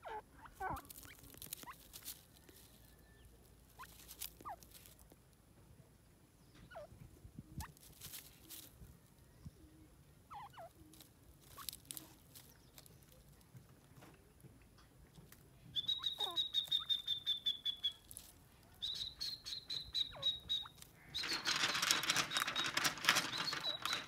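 Francolin (teetar) giving scattered soft, short call notes while foraging, with light clicks and rustles. In the last third, runs of a rapid, high-pitched chirring trill come in, followed by a louder rattling, hissing stretch near the end.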